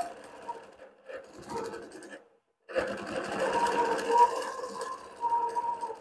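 Innova Classic 22-inch longarm quilting machine running, its needle stitching through the quilt layers as the head is guided by hand in free-motion quilting. The sound cuts out briefly near the middle, then runs on louder.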